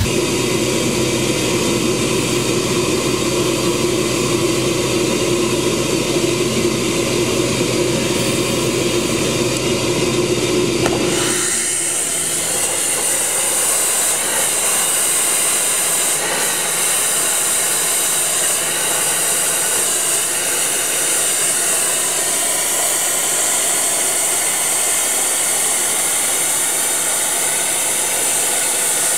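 Sandblaster nozzle blasting grit against a stencil on the marble memorial wall, cutting the engraved names: a loud, steady high hiss. For the first eleven seconds or so a deeper, steady mechanical drone is heard instead, then the sound changes abruptly to the hiss.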